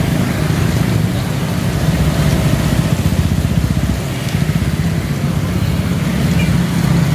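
A motor vehicle engine running steadily close to the microphone, with a fast low throb.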